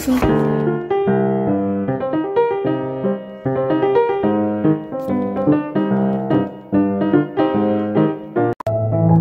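Solo piano background music, a steady flow of notes, breaking off for an instant near the end.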